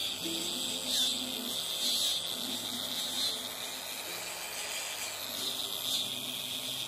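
Angle grinder working over a rusty cast-iron intake manifold to clean it up: a steady high hiss that swells and eases several times as the disc is pressed and moved over the metal. Background music underneath.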